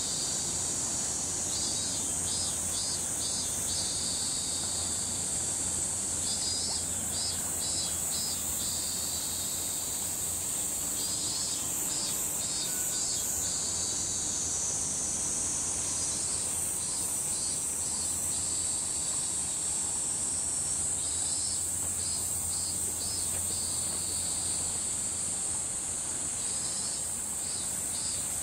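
Cicadas calling in summer trees: a steady high-pitched shrill, with another cicada's call of four or five pulsing notes breaking in every four to five seconds. A low steady hum lies underneath.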